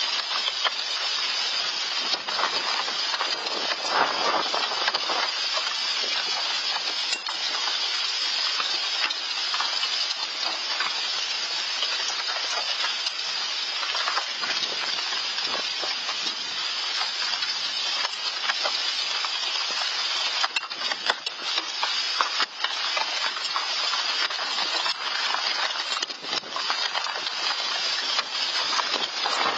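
Hailstones pelting down in a dense, unbroken clatter of countless small impacts, heard through an outdoor security camera's microphone.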